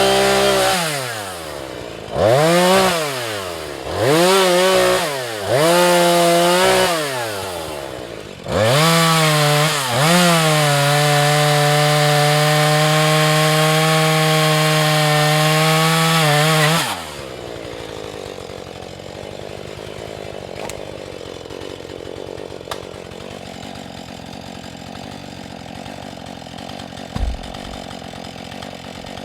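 Husqvarna 435 two-stroke chainsaw revved in four short bursts, then held at full throttle for about eight seconds, possibly cutting into a sycamore log; about seventeen seconds in the revs drop suddenly and it runs on quietly at idle.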